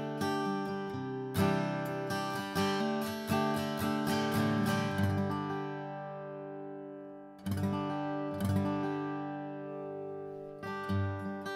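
Atkin Essential OM steel-string acoustic guitar played with a thick Howling Monkey 2.2 pick: quick picked notes and strummed chords. About five seconds in a chord is left ringing and fades away. Two sharp strums follow, and picking resumes near the end.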